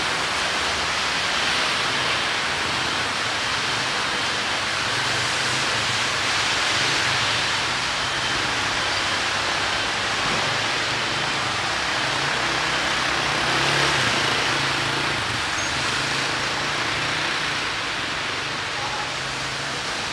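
Steady rain falling on a city street, with the low hum of passing traffic.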